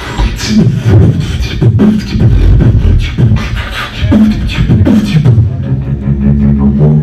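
Beatboxing amplified through a handheld microphone: a rhythmic pattern of deep kick-drum-like thumps and sharp snare and hi-hat clicks, moving into a held low hum near the end.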